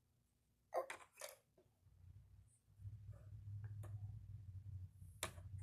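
Faint handling sounds of a paper tissue being rustled and small plastic dolls and dollhouse pieces being moved, with a couple of light clicks late on, over a low rumble that sets in after about two seconds.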